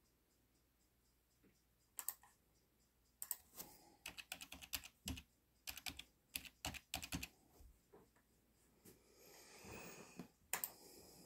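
Faint typing on a computer keyboard: a few keystrokes, then a quick irregular run of them, with a soft rush of noise near the end.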